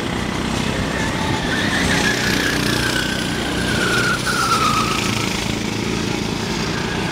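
Go-kart engines running as several karts race past on the track. Under a steady low rumble, one kart's high engine whine slides slowly down in pitch over a few seconds.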